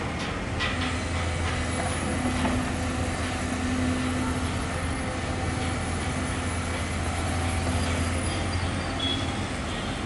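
Diesel engine of a tracked hydraulic excavator running steadily under load while the machine swings and raises its boom, a low drone with a steady engine tone that strengthens through the middle of the clip.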